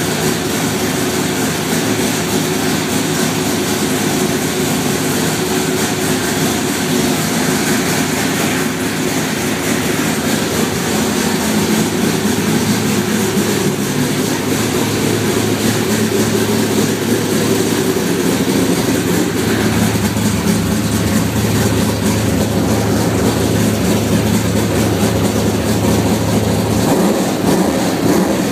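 A NASCAR Canadian Tire Series stock car's V8 race engine idling steadily, a little louder from about twenty seconds in.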